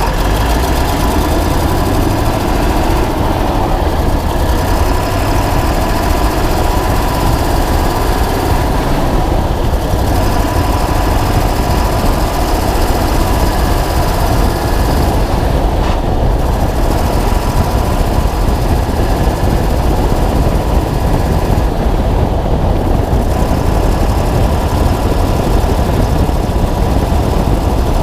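Ford 7.3 L Power Stroke V8 turbodiesel of a 2000 F-250 running steadily, heard close-up from the chassis by the leaf spring, a loud, dense rumble. The recording is made to catch a tick the owner puts down to an exhaust leak.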